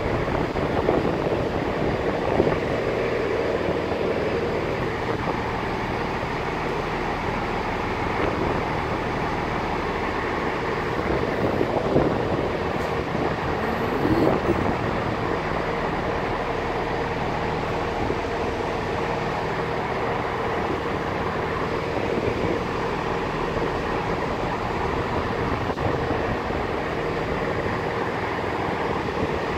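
Diesel passenger trains standing at the platform with their engines running: a steady, even mechanical hum. A couple of brief louder sounds come about twelve and fourteen seconds in.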